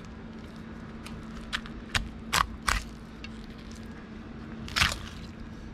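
Fillet knife cutting through raw fish flesh, clicking and crackling sharply a few times as the blade hits the pin bones, over a steady low hum.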